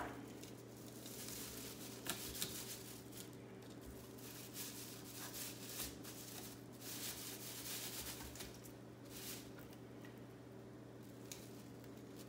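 A fillet knife slicing and scraping along a pigfish as it is filleted, in faint, irregular strokes, over a steady low hum.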